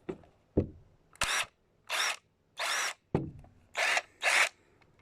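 Ryobi 18V ONE+ impact driver run with no load in five short bursts, its motor whining up and down in pitch with each trigger pull, with a couple of sharp clicks in between. It is a first test run after the tool was reassembled and dried out from a night in the rain, and it is working.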